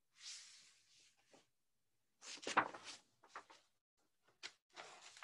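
Picture book being handled: a short, faint paper rustle in the first second, then a few soft knocks and rustles.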